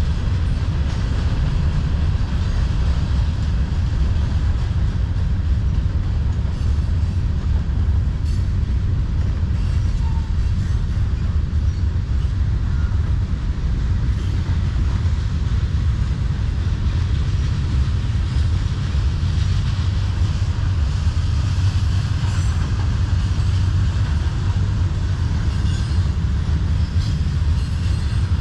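Freight cars of a manifest train rolling past: a steady, heavy low rumble of steel wheels on rail, with a faint high wheel squeal near the end.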